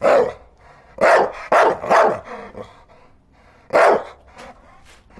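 A dog barking: one bark at the start, three quick barks about a second in, and one more bark a little under a second before the end.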